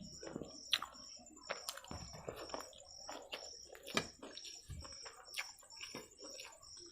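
Wet chewing and lip-smacking of a person eating egg chow mein by hand, with irregular sharp mouth clicks. A faint high chirp repeats about twice a second behind it.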